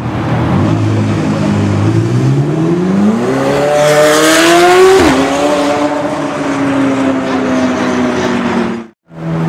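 McLaren 720S twin-turbo V8 accelerating past, its revs climbing for a few seconds and peaking at its loudest, then dropping sharply about five seconds in and holding a steady lower note. The sound cuts off near the end.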